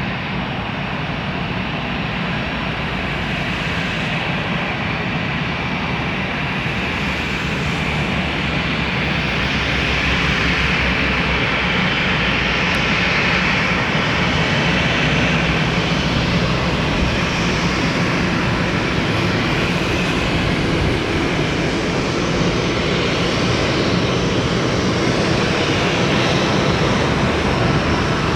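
Jet engines of a four-engine Boeing 747-400 airliner, a steady rushing roar that grows gradually louder.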